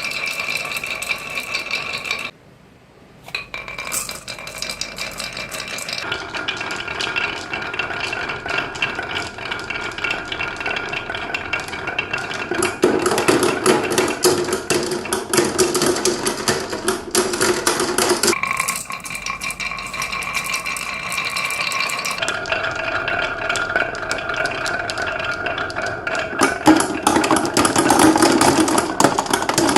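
Many marbles rolling and clattering down a marble run: a dense stream of quick clicks over a steady rolling hum. The sound almost stops briefly about two and a half seconds in and changes character every few seconds.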